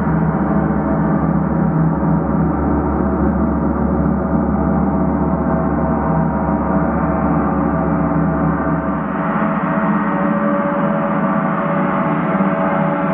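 Several large hanging gongs, struck with soft felt mallets, ring together in a continuous, dense wash of overlapping tones. The deepest hum drops away about nine seconds in.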